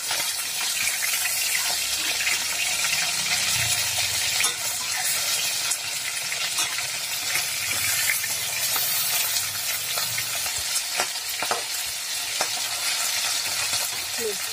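Chela fish pieces sizzling as they fry in hot mustard oil in a metal kadai, with a metal spatula scraping and tapping against the pan now and then as the pieces are turned over.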